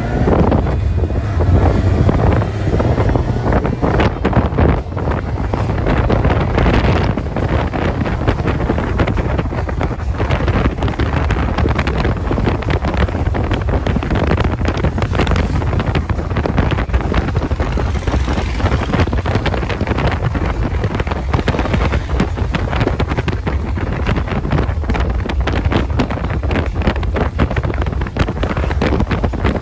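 Wind buffeting the microphone on a moving motorcycle, with a steady low engine and road rumble underneath.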